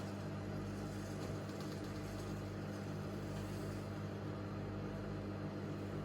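Microwave oven running, a steady low hum.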